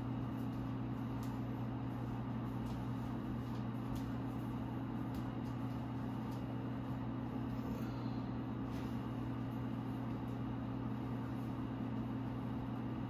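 Steady low hum of running room equipment, with a few faint light clicks.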